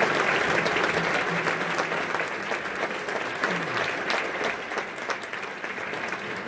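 Concert audience applauding, the clapping slowly thinning and fading.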